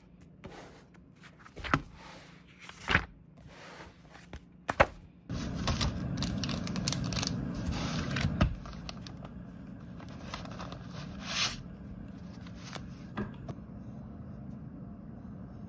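Paper rustling and scraping as a spiral-bound notebook and paper sheets are handled on a desk, with a few sharp taps early on. A denser stretch of rustling and sliding starts suddenly about five seconds in and lasts about three seconds.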